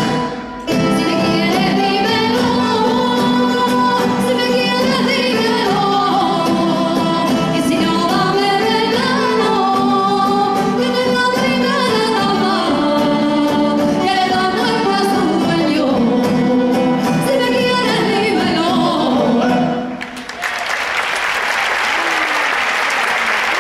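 Extremaduran folk song performed live by singers and a rondalla of guitars and other plucked strings, with a short break about half a second in. The music ends about 20 seconds in and the audience applauds.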